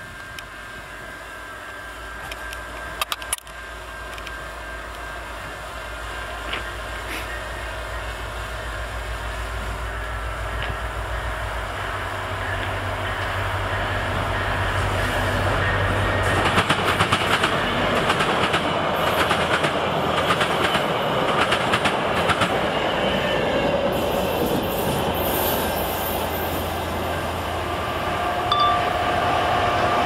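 VIA Rail diesel-hauled passenger train approaching and passing. The locomotive's engine drone grows steadily louder, then from about halfway the wheels click in a quick rhythm over the rail joints and junction switches as the cars go by.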